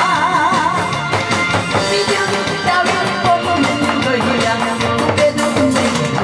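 A woman singing through a microphone over loud amplified music with a steady drum beat; she holds a long note with wide vibrato for about the first second, then moves on to shorter notes.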